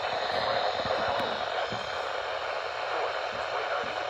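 Steady hiss of radio static from a receiver on a noisy signal.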